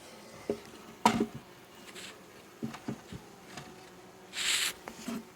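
Honeybees buzzing around an open hive box in a faint steady hum, with a few sharp knocks, the loudest about a second in, and a short rustle a little after four seconds.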